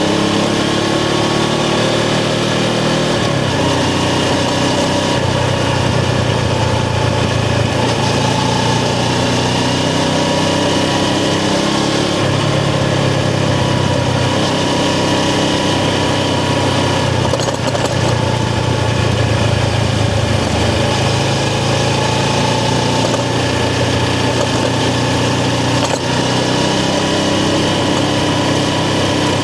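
Suzuki GS500's air-cooled parallel-twin engine running under way, its pitch rising and falling in steps several times as the bike accelerates and eases off.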